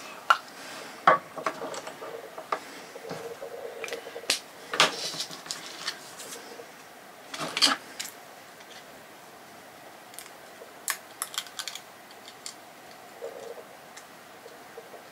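Small scissors cutting a round disc out of thin, stiff PET bottle plastic: irregular snips, clicks and crackles of the plastic, thicker in the first half and sparser later.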